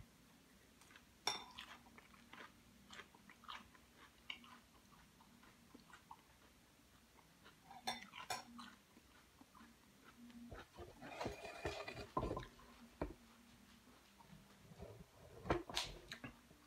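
Close-up chewing of salad, with a metal fork clicking and scraping against the bowl in scattered, irregular strokes.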